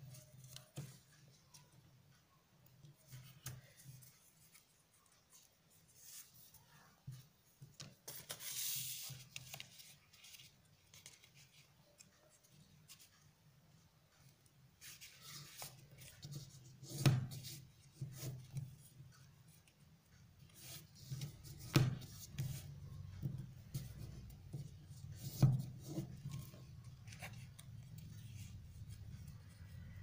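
A sheet of paper being folded and creased by hand on a wooden tabletop: rubbing and rustling as fingers press along the folds, with a longer scraping swipe about nine seconds in. Later come three sharp taps against the table, the loudest sounds.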